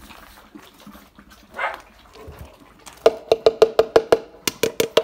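About three seconds in, a metal can starts being rattled in quick, even strokes, about six or seven a second, each with a short ringing tone, pausing briefly and starting again near the end.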